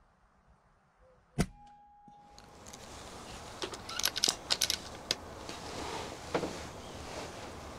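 A single sharp shot from a moderated Daystate PCP air rifle about a second and a half in. A couple of seconds later comes a quick run of metallic clicks as the rifle's side lever is worked to chamber a pellet for a follow-up shot, with a further click near the end.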